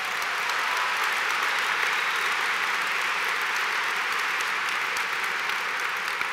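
Large audience applauding, a dense steady clapping that eases off slightly near the end.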